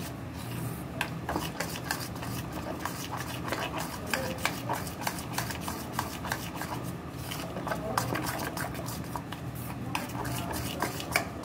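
A spoon stirring and beating thick besan (gram-flour) batter in a steel bowl, with quick, irregular clicks and scrapes of the spoon against the metal.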